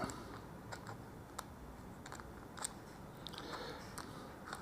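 Faint, scattered small clicks and ticks of a hex driver and screw being fitted into the plastic parts of an RC buggy kit.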